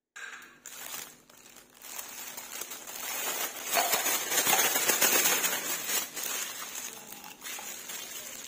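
Clear plastic piping bag crinkling and rustling as it is handled and lifted out of a cup, loudest about halfway through.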